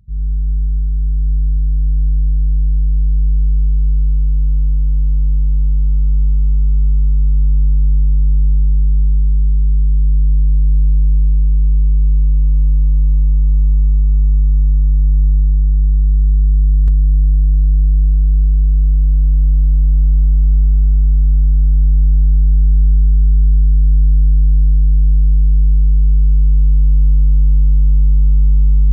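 Steady electrical buzz: a low, unchanging mains hum with a few fainter higher overtones.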